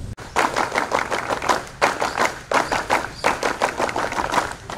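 A large group of people clapping together in a quick, even rhythm, in three runs with two short breaks.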